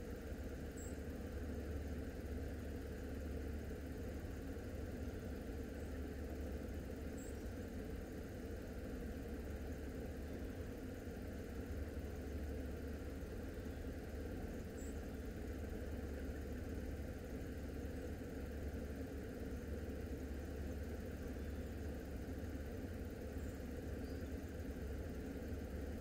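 Steady low hum and rumble, even and unchanging throughout, with no distinct events.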